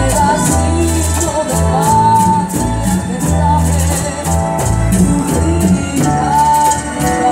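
Live symphony orchestra playing, bowed strings carrying a wavering melody over sustained bass notes, with a steady shaker-like percussion beat about four times a second.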